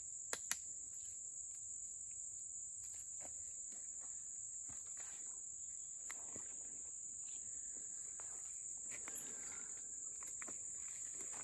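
Steady high-pitched chorus of insects, with two sharp clicks about half a second in and faint rustling.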